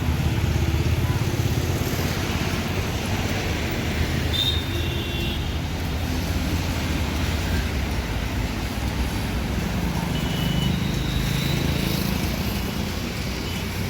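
Street traffic: a steady rumble of passing road vehicles, with a few short high-pitched tones about four seconds in and again around ten to twelve seconds.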